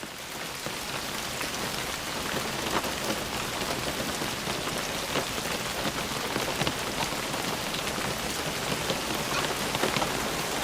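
Steady rain falling with a dense patter of drops, growing a little louder over the first couple of seconds.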